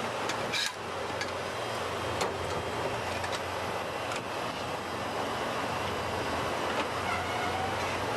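Steady background noise with a low hum, broken by a few short, faint clicks.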